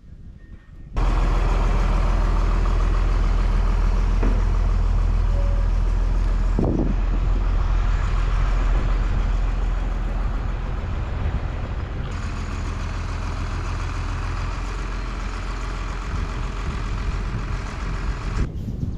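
An engine running steadily at a constant speed, cutting in abruptly about a second in.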